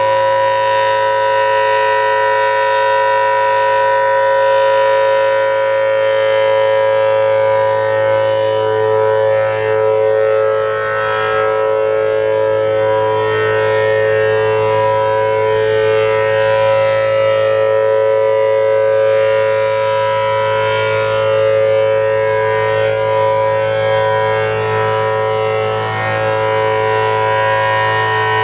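Federal Signal Thunderbolt 1000T outdoor warning siren sounding its steady alert signal: a loud, unwavering multi-note tone that does not rise or fall in pitch, swelling slightly in loudness now and then.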